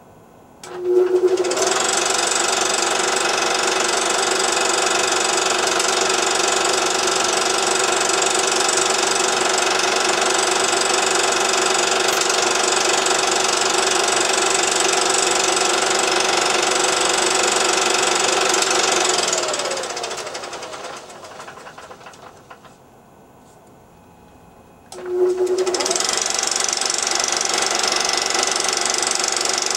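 Simplex E-7 35mm projector head and RCA 1040 soundhead running with film threaded, the mechanism clattering steadily as the drive motor turns it. The motor starts and spins up with a short rising whine, runs down and falls quiet about 19 seconds in, then starts again about 25 seconds in and keeps running.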